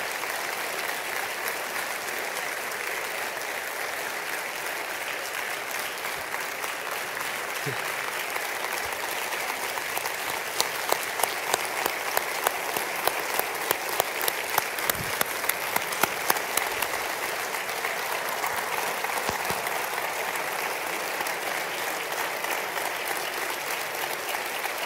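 Congregation applauding with sustained clapping. For several seconds midway, one person's claps stand out sharply at a steady beat, about three a second.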